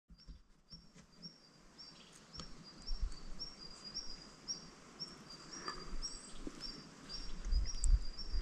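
Outdoor ambience with a short high chirp repeating regularly, about two to three times a second, over a faint steady background, with a few low rumbles, the loudest near the end.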